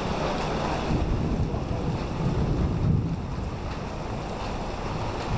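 Wind rumbling on the microphone over the wash of a rainy street, with cars passing on the wet road; the rumble swells about a second in and eases off after three seconds.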